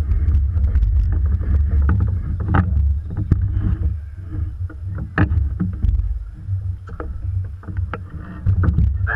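Wind rumbling on the microphone of a camera mounted on a rowing eight, with scattered knocks and taps from the shell and its oars while the boat lies still with the crew at rest.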